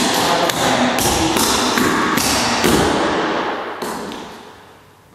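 Clogging shoes tapping and stamping on a wooden floor in a fast run of dance steps, the taps fading away near the end.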